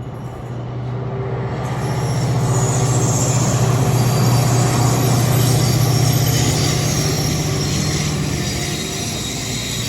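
Captrain freight train with loaded wagons passing: a steady low drone and rolling hiss that grow louder to a peak about halfway through, then ease off.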